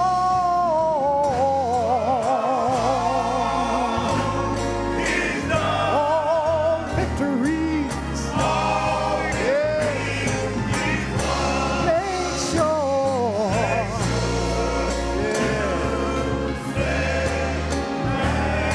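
Gospel choir singing with vibrato over a steady bass line and band accompaniment.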